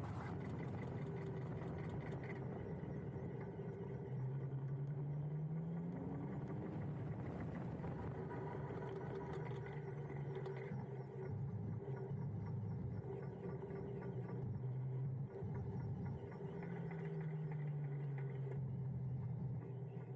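Huck Cycles Stinger electric motorbike riding: the hub motor's whine rises in pitch as it speeds up about a quarter of the way in and falls as it slows near the end, over road and wind noise. A light clicking comes from a loose camera mount.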